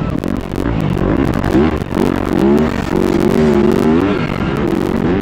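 Motocross bike engine racing over a dirt track, revving up and dropping back several times as the throttle opens and closes, with wind and rough-ground noise on the rider's helmet camera.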